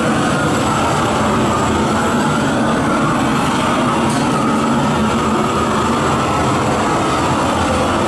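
Propane gas torch burning with a steady, loud rushing flame as it is played over a wire-mesh cage to disinfect it.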